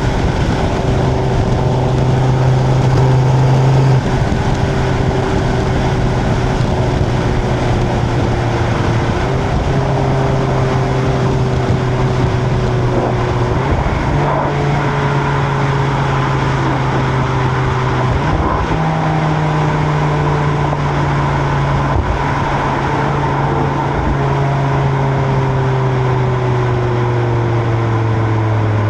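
Stock Audi RS3 five-cylinder turbo engine heard at the exhaust while cruising, with tyre and wind noise underneath. Its pitch drifts slowly lower and steps up a few times: about a third of the way in, around halfway, and again a little later.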